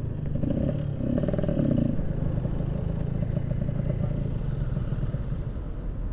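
Yamaha RX-King 135cc two-stroke single-cylinder motorcycle engine running as the bike rides, its note fairly steady and easing near the end.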